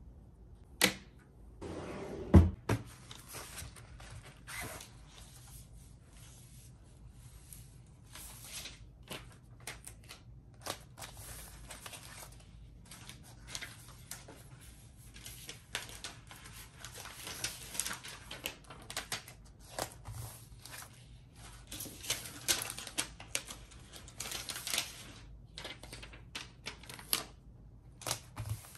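Plastic bubble mailer rustling and crinkling as it is folded and its flap pressed shut, with many small taps and clicks. A single loud thump comes about two seconds in.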